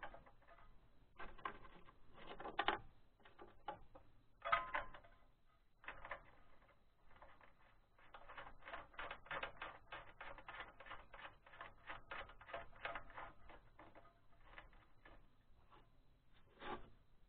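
Small metallic clicks and clinks of hand work on the mounting bolts and nuts at the base of a Lifan 168F engine, with a few louder knocks and a long run of quick, irregular clicking in the middle.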